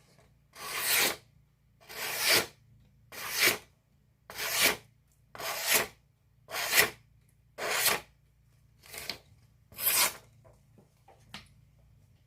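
A freshly sharpened hand-forged knife slicing through paper in a sharpness test: about ten rasping cuts, one roughly every second, the last few fainter.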